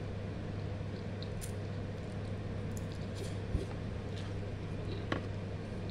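A person eating instant noodles with a plastic fork: faint wet slurping and chewing, with a couple of sharp clicks about halfway and near the end. A steady low hum runs underneath.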